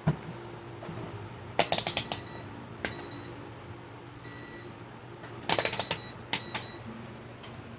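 Multimeter test probes and the meter being handled against the amplifier's circuit board and metal chassis: two bursts of quick clicks and taps, with a faint short beep or two. A low steady hum from the powered-on amplifier runs underneath.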